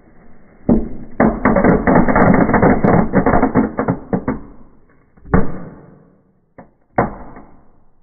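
Small fireworks set off in a fireplace: a dense run of rapid crackling pops lasting about three and a half seconds, then a single loud bang, a small pop and another bang near the end.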